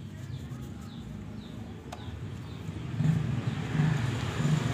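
A motor vehicle engine running, coming in about three seconds in and growing louder in pulses, over faint high chirps and a single click earlier on.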